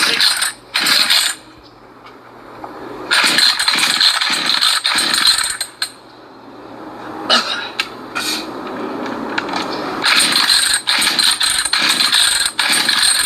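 Craftsman 42cc two-stroke chainsaw being pull-started cold on full choke: the recoil starter cord is yanked repeatedly, each pull giving a short loud rattling whir, with a longer loud stretch near the end.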